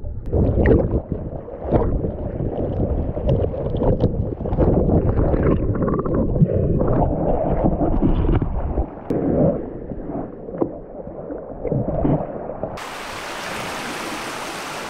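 Muffled underwater sound through an action camera's waterproof housing: water surging and bubbling, with irregular knocks. About thirteen seconds in it cuts to a steadier, quieter hiss of wind and surf.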